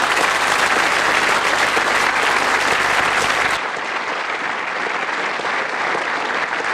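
Large audience applauding steadily, a dense patter of many hands clapping; it drops slightly in level a little over halfway through.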